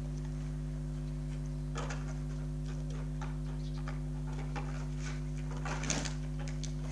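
A small hand tool scraping across spray-painted poster paper in short, irregular scratchy strokes that begin about two seconds in, over a steady low hum.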